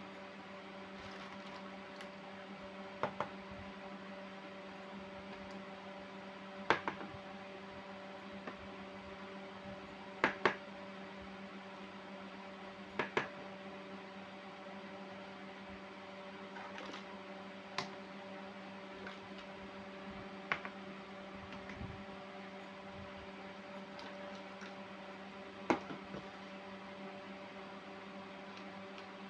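Small plastic toy kitchen pieces being set down on a tabletop one at a time, giving short, sharp clacks every few seconds, some in quick pairs. A steady low hum runs underneath.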